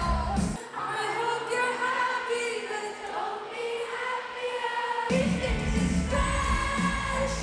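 Live arena pop concert heard through a phone's microphone: a female singer's amplified vocals with the band. About half a second in, the bass and drums drop away, leaving mainly the voice, and the full band returns about five seconds in.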